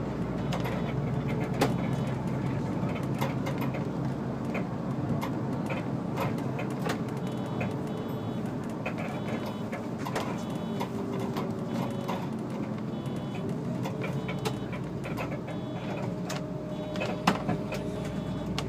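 SOR NB 12 City bus driving, heard from the driver's cab: steady engine and road noise with frequent small rattles and knocks. A sharper knock comes about a second and a half in and another near the end, and a faint whine rises in pitch near the end.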